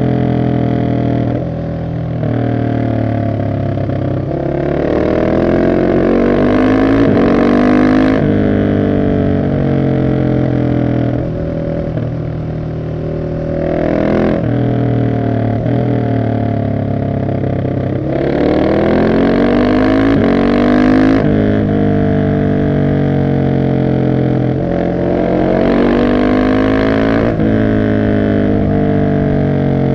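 Husqvarna 701 SM's single-cylinder engine through an Arrow exhaust with the catalytic converter removed, accelerating hard several times. Each time the pitch climbs in steps as it shifts up through the gears, then drops suddenly when the rider backs off.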